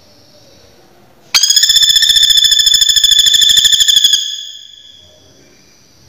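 Common flameback woodpecker giving a loud, rapid rattling trill of about ten notes a second. It starts abruptly a little over a second in, lasts nearly three seconds, then fades away.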